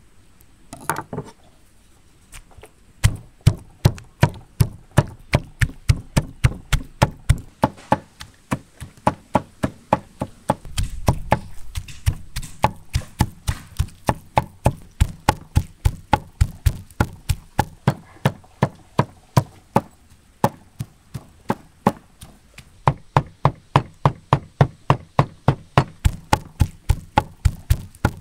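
Large kitchen knife chopping raw meat on a thick wooden cutting board, mincing it by hand. The blade strikes the board in a steady run of sharp knocks, about three a second, with a short pause a little past two-thirds of the way through.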